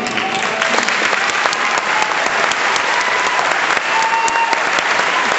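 Audience applauding: dense, steady clapping from many hands, starting just as the music stops.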